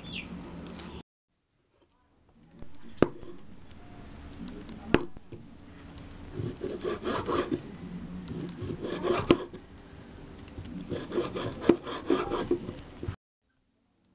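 Kitchen knife slicing raw beef into thin strips on a wooden chopping board: rasping strokes of the blade through the meat, with about four sharp knocks as the blade hits the board.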